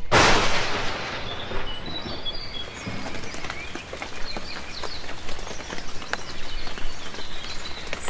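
Small birds chirping in short calls, over scattered clicks and crackles. A sudden rush of noise at the start fades away over about a second.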